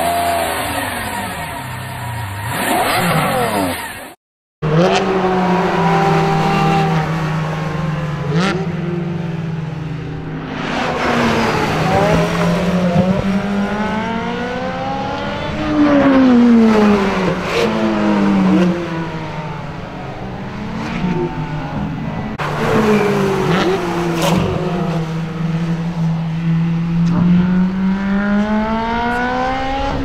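High-performance car engines on a race circuit, accelerating hard as cars pass. The pitch climbs through each gear and drops back at every upshift, several times over. About four seconds in, the sound cuts briefly to silence.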